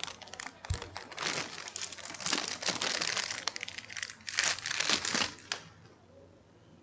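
Clear plastic packaging crinkling and rustling as hands open it and pull out a handheld radio's antenna, in uneven bursts that stop a little before the end.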